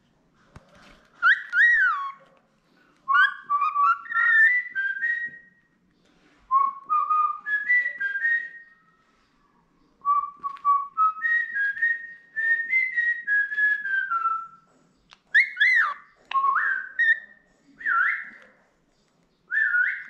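Cockatiel whistling a melodic string of phrases, with notes that slide and step up and down and short pauses between the phrases.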